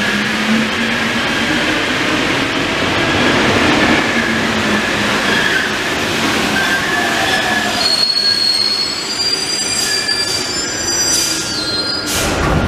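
Rubber-tyred MP 05 driverless metro train of Paris Métro Line 1 running into the station and braking to a stop. High thin squealing tones come in over the last few seconds as it slows, with a few sharp clicks near the end.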